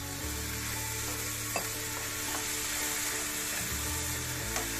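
Okra masala sizzling in a frying pan after a splash of water is poured in, with a wooden spatula stirring it and a few light clicks against the pan.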